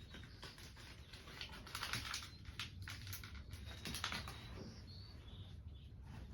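Faint, irregular light clicks and rustles of small objects being handled and moved about, as when rummaging for a wiping rag.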